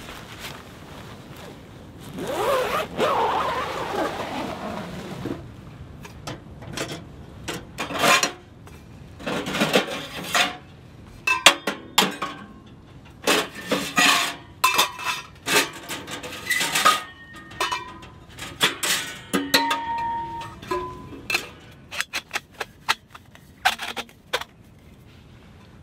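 Rustling for a few seconds, then a long run of metal clinks, knocks and scrapes as a tent wood stove and its metal stovepipe sections are handled and fitted together; some strikes ring briefly.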